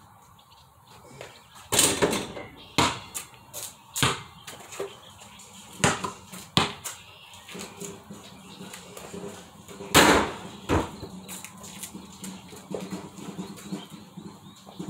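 A basketball bouncing and striking the hoop: a handful of irregular sharp thuds, the two loudest about two seconds in and about ten seconds in.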